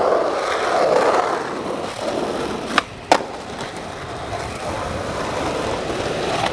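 Skateboard wheels rolling on an asphalt street, with two sharp clacks in quick succession about three seconds in.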